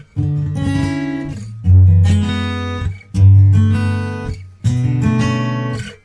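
Background music: an acoustic guitar strumming chords, a new strum about every second and a half, each ringing out and fading before the next.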